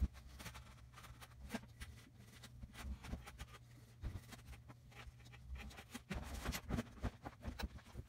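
Light scraping and scattered small clicks and taps as a gloved hand works a thin tool along soft insulation board, over a faint steady low hum. It is the sound of grooves being cut or scored for a heating element.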